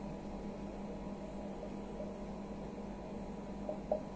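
Steady low electrical hum with room hiss. Near the end come a few short squeaks of a marker writing on a whiteboard.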